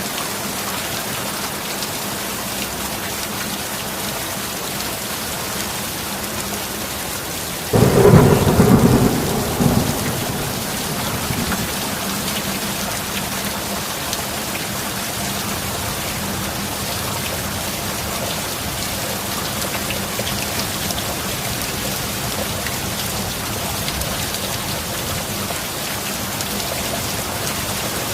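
Steady heavy rain with a single clap of thunder about eight seconds in: a sudden loud crack that rumbles and fades over a few seconds, after which the rain goes on evenly.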